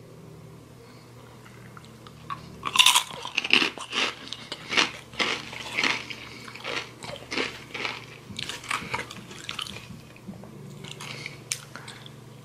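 Crunching and chewing of Takis rolled corn tortilla chips coated in hot sauce: a quiet start, then a run of loud bites and crunches from about three seconds in that eases off after about nine seconds, with a few lighter crunches near the end.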